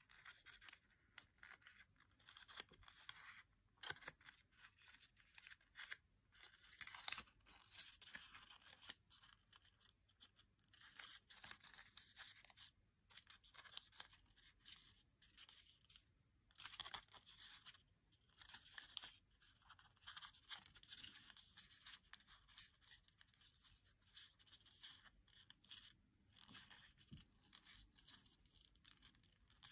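A small square of origami paper being folded and pinched by hand: faint, irregular crinkling and rustling, with short sharper crackles as the folds are pressed.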